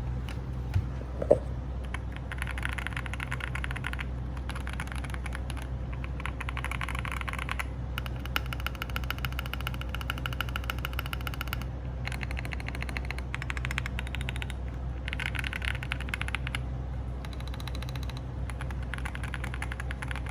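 Fast typing on a fully modded Akko 5075B mechanical keyboard with fully lubed switches: dense runs of keystrokes lasting a few seconds each, with short pauses between them, over a steady low hum.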